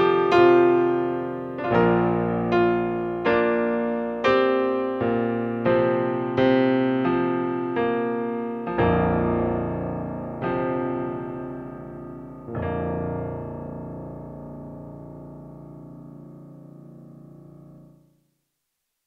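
Digital piano playing a slow piece in struck chords. The chords come further and further apart until a last chord about twelve seconds in is held and fades, then the sound cuts off suddenly near the end.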